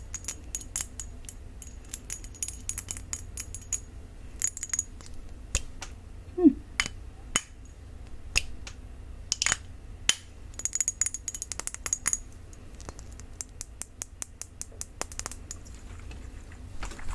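Tapping on a glossy black perfume bottle, which she takes for plastic: quick flurries of light taps alternating with single sharper taps, and one brief squeak about six seconds in.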